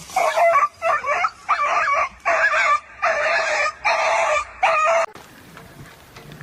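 A dog vocalising in a run of about seven short calls, each about half a second long and wavering in pitch. The calls stop abruptly about five seconds in, leaving only faint background noise.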